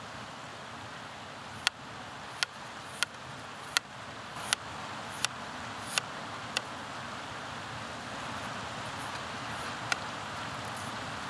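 A knife blade clicks down onto a plastic cutting board as a yam is cut, about eight sharp taps roughly every 0.7 s, then one more near the end. Under it a river rushes steadily.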